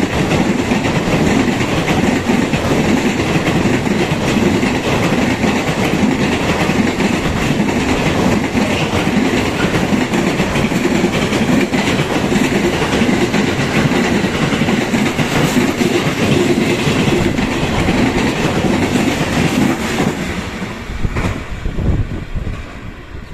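A train passing at speed, a long, loud rush of wheel and rail noise lasting about twenty seconds that dies away in the last few seconds.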